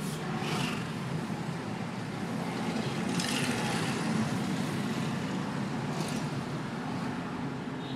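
Car interior driving noise: a steady low engine and tyre hum heard through the cabin, with brief hissy swells about three and six seconds in as oncoming cars pass.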